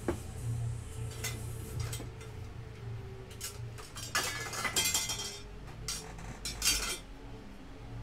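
Small metal tools and hard objects clinking and clattering on a repair workbench, a handful of short clatters with the busiest stretch about halfway through, over a steady low hum.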